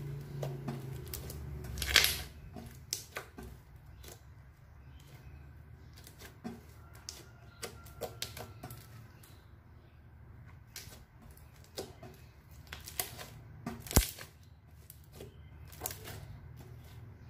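Thick tan slime being folded, squeezed and pressed by hand, giving irregular small clicks and pops, with two louder pops about two seconds in and again near the end.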